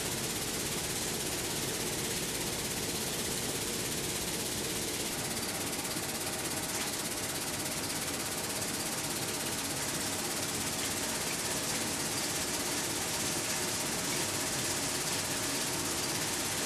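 Steady noise of a glass cleaning line's air sifter running: a constant rush of air with glass cullet and debris rattling through it, over a faint machine hum.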